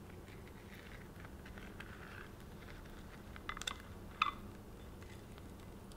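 Clear acetate cake collar being peeled off the side of a cream-covered cake: a faint plastic rustle, then a few sharp crackles about three and a half seconds in and a brief squeak just after as the film pulls away from the cream.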